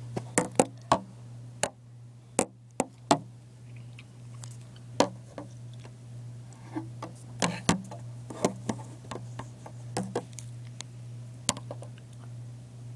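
Irregular sharp clicks and taps of plastic Lego bricks being handled close to the microphone, with a steady low hum underneath.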